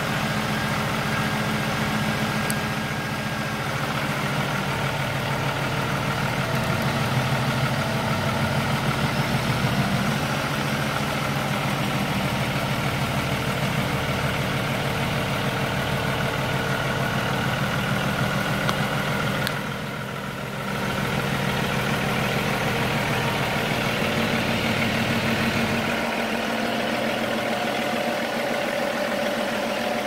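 Diesel engine of a 40-ton Altec crane truck running steadily while the crane works. It dips briefly about two-thirds of the way through and loses some of its low rumble near the end.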